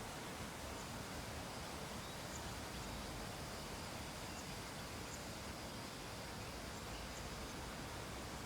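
Steady faint background hiss with a few faint, brief high-pitched ticks scattered through it.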